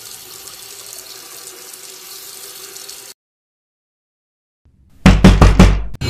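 Water running from a bathroom tap into the sink, a steady hiss that cuts off abruptly about three seconds in. After a moment of silence, a rapid series of about five loud knocks comes near the end.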